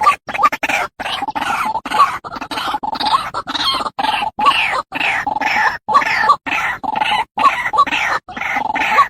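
White-breasted waterhen calling: a long run of short, harsh, repeated notes, about two a second with brief gaps between them.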